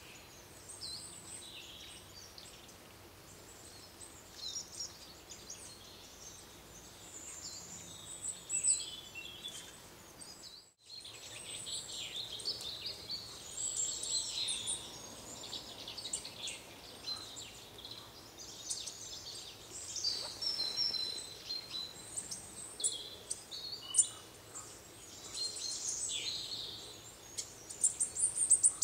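Wild woodland birds calling and singing, many short high-pitched chirps and twitters overlapping, with a brief dropout to silence just before eleven seconds in and a few sharp clicks near the end.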